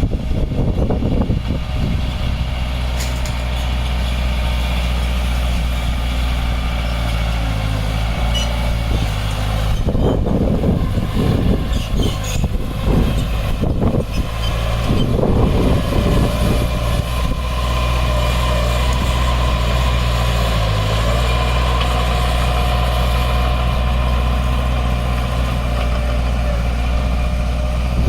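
Heavy diesel earthmoving equipment running steadily at a job site. Irregular rumbling and clattering comes through near the start and again for several seconds from about ten seconds in.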